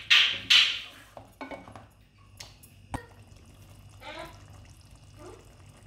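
Wooden spatula scraping and stirring through thick mutton korma in an aluminium pot, a couple of quick strokes in the first second, then a single knock about three seconds in. After that only the faint bubbling of the korma left to simmer.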